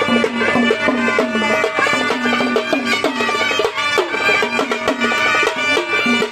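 Sambal, the Maharashtrian pair of folk drums played with sticks, beating a fast, dense rhythm, with a sustained pitched melody instrument playing over it.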